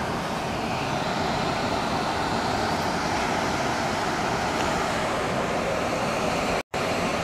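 Steady rush of hurricane-force wind and rain through trees, without letup; the sound cuts out for a split second near the end.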